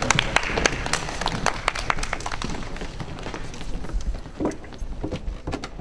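Scattered, irregular sharp clicks and taps over a low room murmur, growing fainter toward the end.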